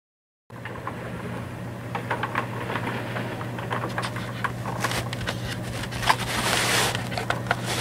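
Plastic toy pickup truck and trailer rolling over carpet, pushed by hand, with a scraping rumble, scattered clicks and rattles, and a steady low hum underneath; it grows slowly louder.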